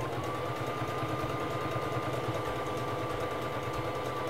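Singer Fashion Mate 3333 sewing machine running at a steady speed, stitching a side of a four-step buttonhole: a steady high motor whine over rapid needle ticking.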